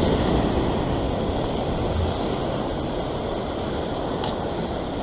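Steady rushing wash of surf breaking and foaming over coastal rock ledges.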